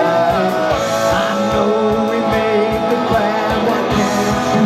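Live rock band playing: electric guitars and bass over a drum kit keeping a steady beat, loud and amplified.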